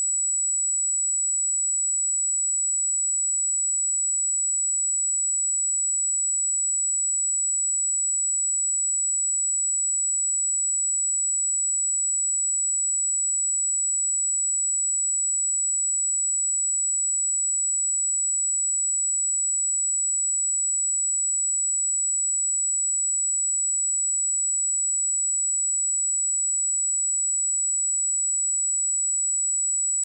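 A pure 7855 Hz sine-wave test tone, one steady high-pitched whistle held at a constant level.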